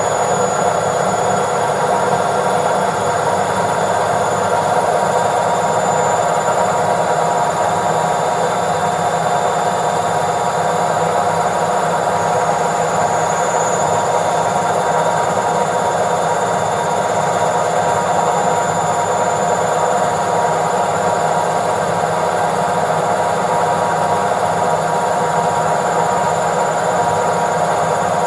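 Washing machine on its spin cycle: a steady whirring hum with a motor whine held at one pitch and a faint high tone above it.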